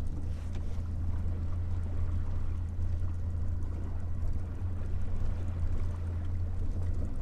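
Small outboard motor running steadily at low speed as it pushes an aluminium fishing boat slowly along, giving an even low hum.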